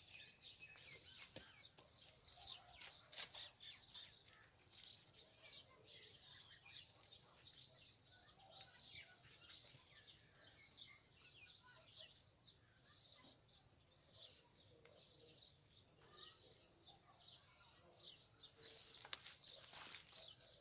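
Small birds chirping faintly and continually, a quick run of short high chirps.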